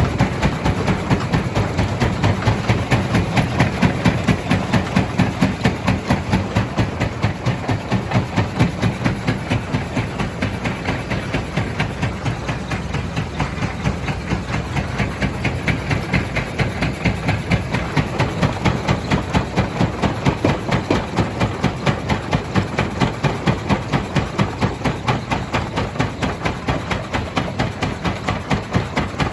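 Small stone crusher running, a fast, even pounding rhythm of several strokes a second.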